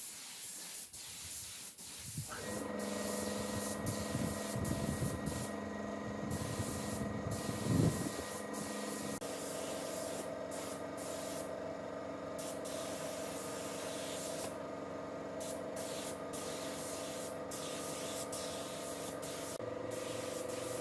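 A small power tool starts about two seconds in and runs steadily, a hum with several held pitches over a hiss, with one brief louder moment near the middle.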